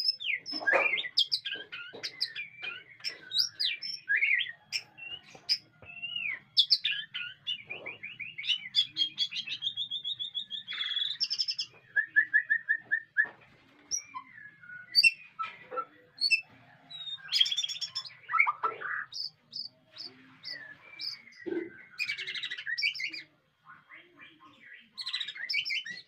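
White-rumped shama singing a long, varied song of clear whistles, slurred notes and fast trills and repeated phrases.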